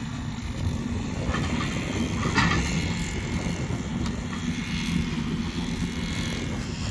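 A vehicle's engine running steadily, with a short clatter about two and a half seconds in.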